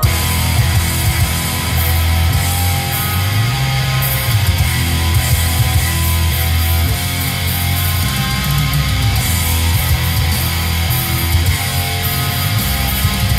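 Black metal music with distorted electric guitars and heavy bass, coming in abruptly at full volume and playing loud and dense throughout.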